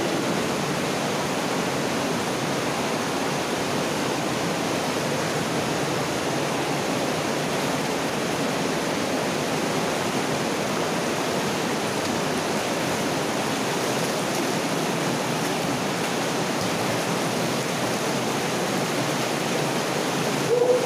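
Steady rush of water running through a rock-walled mine drainage culvert.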